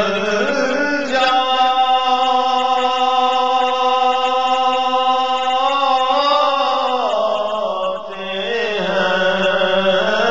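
A man singing an Urdu naat in a chant-like style. About a second in he holds one long note for several seconds, then slides through a wavering melodic run, breaks off briefly and starts a new phrase.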